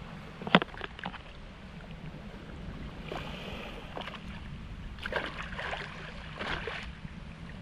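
Shallow sea water washing around a wading angler, with wind on the microphone. A sharp click about half a second in and scattered clicks and rustles later come from handling the hook, live shrimp bait and fishing pliers.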